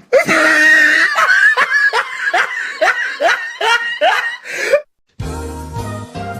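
A cartoonish laugh sound effect: a quick string of rising, high-pitched snickers, about three a second, cut off sharply. After a brief silence, a bass-heavy music clip starts.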